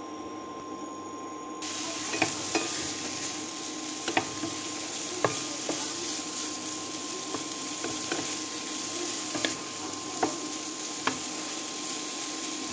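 Diced raw bacon sizzling in a nonstick frying pan, the sizzle growing louder about a second and a half in as the fat heats. A wooden spatula stirs it, knocking against the pan about ten times.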